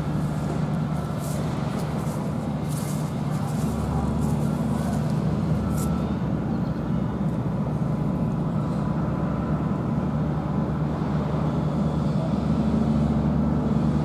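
An engine running steadily, a low even drone that swells slightly about four seconds in and again near the end.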